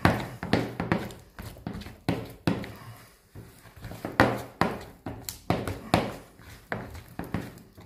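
A hand slapping and beating a soft yeast dough made with boiled cauliflower in a plastic bowl: wet slaps and squelches about two or three a second, with a brief lull around three seconds in. This is the dough being beaten for a few minutes to develop it before it rises.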